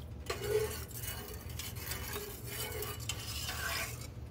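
A utensil stirring thin broth in a metal stock pot, scraping and clinking against the pot's sides and bottom: the thickener is being stirred in so it dissolves without clumps as the broth comes back to a boil.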